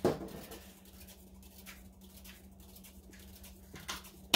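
Scattered light clicks and taps of small objects being handled, with a sharper knock at the start and another near the end, over a steady low hum.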